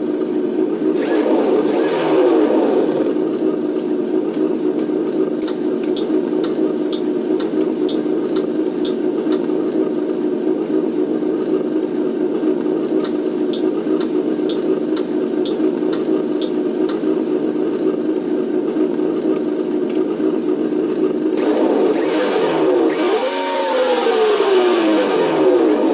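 Simulated engine sound from a G.T.POWER RC sound and light module, played through its small loudspeaker: a steady idle that revs up and falls back shortly after the start and again near the end.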